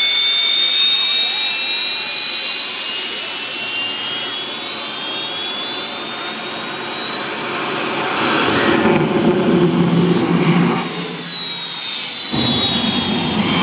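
The Green Mamba jet car's turbine engine running: a loud high whine that slowly rises in pitch, then falls. A deeper rumble swells in about eight seconds in and again near the end.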